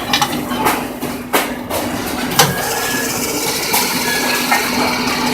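A multi-head drilling machine running with a steady hum. Several sharp metal clanks come in the first two seconds or so, then steady machine running noise.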